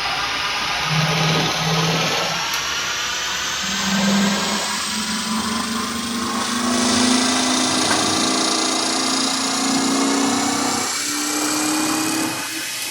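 A metal-working machine tool running with a steady, many-toned whine that rises slightly, its lower tone shifting in pitch several times.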